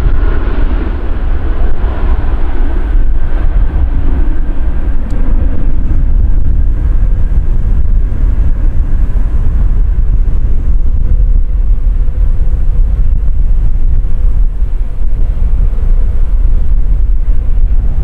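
Qantas Boeing 737-800's twin turbofan engines at take-off power as it lifts off and climbs away, the jet noise loudest at first and fading. Heavy wind buffeting on the microphone makes a constant deep rumble underneath.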